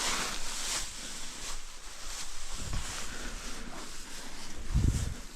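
Rustling and footsteps, with two short low thumps, one about halfway and one near the end.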